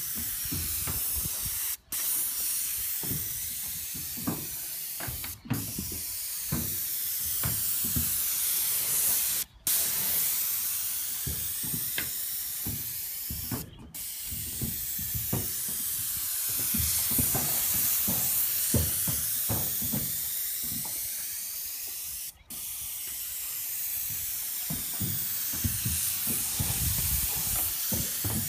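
Airless paint spray gun on an extension pole hissing steadily as it sprays paint onto a corrugated metal roof. The hiss breaks off briefly about five times, and low knocks and rustles sound underneath.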